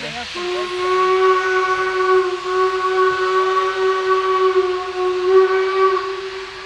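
Steam locomotive whistle sounding one long blast of about six seconds at a steady pitch, over a steady hiss.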